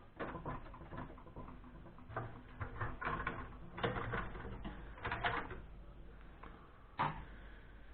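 Plastic and metal parts of a desktop PC being handled and pried apart by hand: a run of clicks, taps and rattles, busier in the middle, with one sharper knock near the end.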